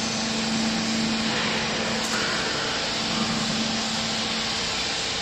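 Vertical hydraulic clothes baler's electric motor and hydraulic pump running: a steady low hum over an even mechanical whir.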